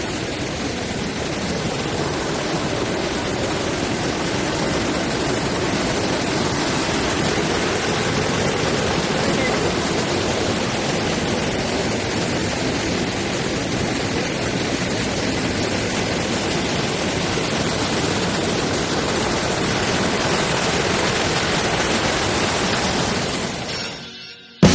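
Waterfall: a steady rush of falling water, fading out about a second before the end.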